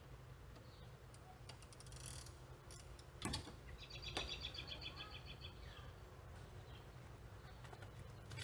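Faint clicks and knocks of metal hardware being handled on an SUV roof rack, from U-bolts and nuts being fitted to wooden cross-bar extensions. There is a sharper knock a little after three seconds in, and a short rapid bird trill about four seconds in, over a low steady hum.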